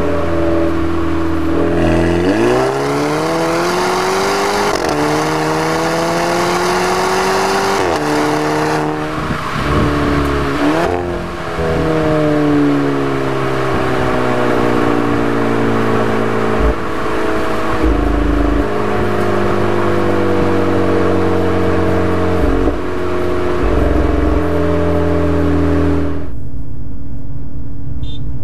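Volkswagen Golf GTI Mk6's turbocharged four-cylinder through an APR RSC turboback exhaust, accelerating hard with the engine note climbing. The pitch drops at gear changes about 9 and 11 seconds in, the second marked by a short exhaust blurt: the DSG 'fart' on an upshift. The engine then settles to a steadier, slowly falling note and begins to rise again near the end.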